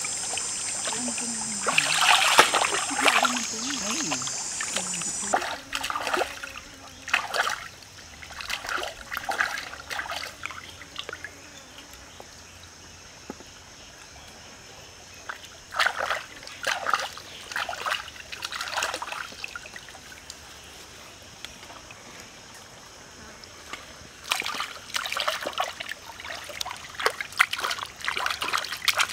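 Shallow stream trickling, broken by repeated short splashes of water in clusters, the last of them as raw chicken pieces are rinsed in the stream. A high steady buzz runs through the first five seconds and cuts off abruptly.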